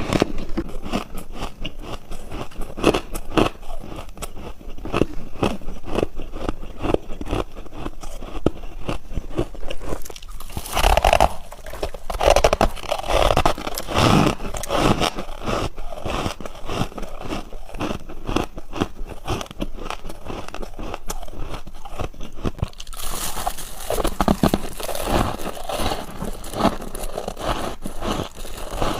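Ice being bitten and chewed close to the microphone: a steady run of crisp crunches and crackles from freezer ice and frost, with the crunch changing character twice along the way.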